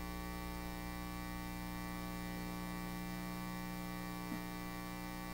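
Steady electrical mains hum with a buzzing edge from the microphone and sound system.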